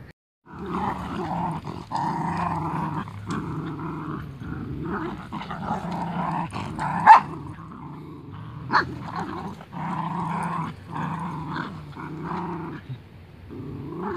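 Husky corgi puppies growling in play, a string of growls about a second each, with two short, sharp yips about seven and nine seconds in.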